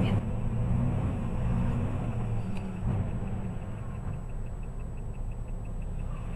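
Steady low engine and road rumble of a vehicle driving, heard from inside the cab. A faint, fast, regular ticking sets in about halfway through.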